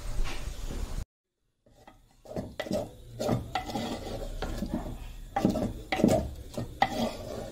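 Wooden spoon stirring and scraping food in an earthenware pot, in irregular strokes about once or twice a second. About a second in, the sound cuts out completely for half a second before the stirring starts.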